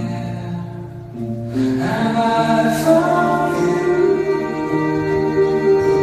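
Slow song with a sung melody over long held notes. It dips briefly, then swells fuller about a second and a half in.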